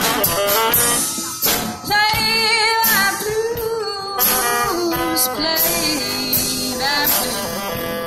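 Live band playing a jazzy blues number: a saxophone lead line over guitar and a drum kit.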